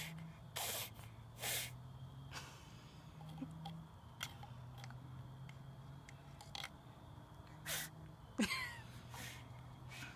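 A toddler blowing short breathy puffs through a plastic bubble wand, several separate puffs, over a low steady hum. A brief rising squeak about eight seconds in is the loudest moment.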